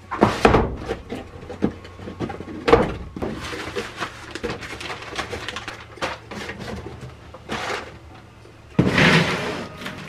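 Cardboard boxes and foam packing being handled: a string of knocks, scrapes and rustles as a solar charge controller is lifted from its box, then a louder stretch of plastic wrapping crinkling near the end.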